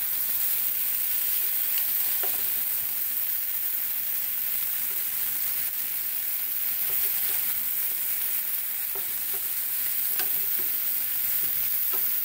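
Chicken drumsticks sizzling steadily in olive oil in a nonstick frying pan. Now and then the tongs click against the pan as the pieces are turned.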